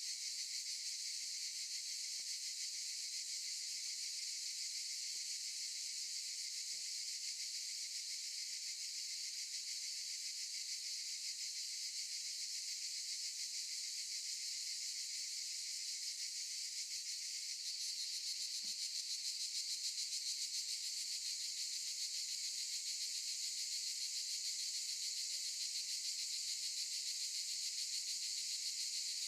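Cicadas singing in chorus: a steady, dense, high-pitched buzz that grows a little louder about two-thirds of the way through.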